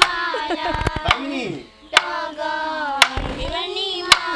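Child's voice singing a Bodo Bwisagu folk song, high-pitched and unaccompanied, with sharp hand claps about once a second.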